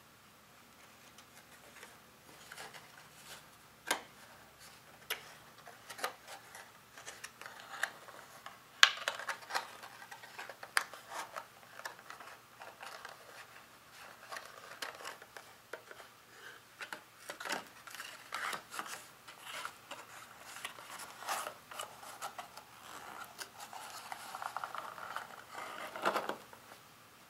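Paperboard candy box being folded and assembled by hand: scattered crinkles, creases and taps of card, one sharp snap about nine seconds in, and a longer rubbing slide of card on card near the end.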